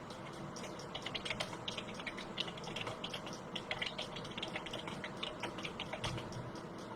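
Continuous typing on a computer keyboard: quick, irregular key clicks coming several a second, over a low background hiss.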